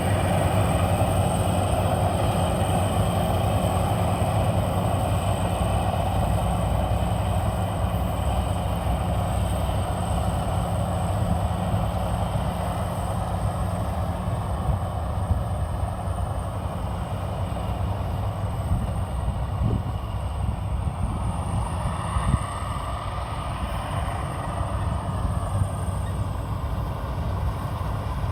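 Maxxi Bimo 102 combine harvester running steadily with a constant engine drone and a faint high whine, growing a little quieter toward the end.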